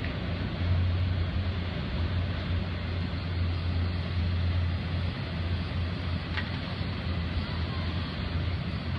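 Florida East Coast freight train's autorack cars rolling across a railway bridge, a steady low rumble. A brief high squeak about six seconds in.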